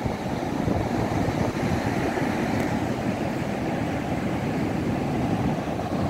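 Rough storm surf breaking on a sandy beach: a steady rush of waves, with wind buffeting the microphone.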